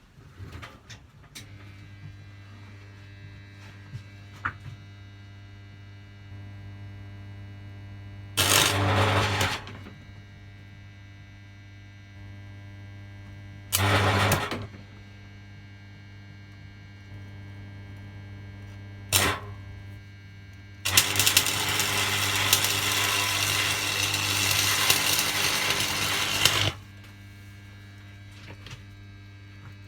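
Old arc welder humming steadily, with the welding arc crackling and sizzling in bursts: two short runs of about a second, a very brief strike, then a longer run of nearly six seconds. The hum swells while the arc is burning.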